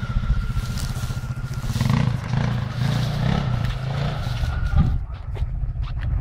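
Quad bike (ATV) engine running under throttle, its low pulsing note swelling twice as it pulls up a dirt slope, then easing off near the end.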